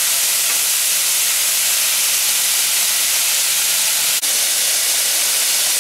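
Floured cube steaks frying in hot oil in a skillet: a steady, loud sizzle, with a brief dropout about four seconds in.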